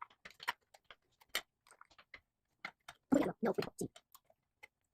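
Irregular light clicks and taps of a knife against a graham cracker and plate while spreading frosting, with a brief louder cluster about three seconds in.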